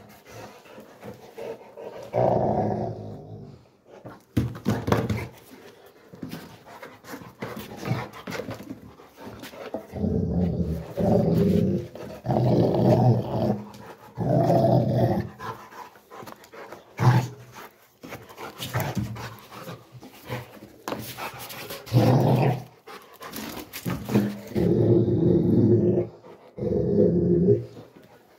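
Rottweiler growling in repeated bouts of a second or two, with short knocks and scuffs in between.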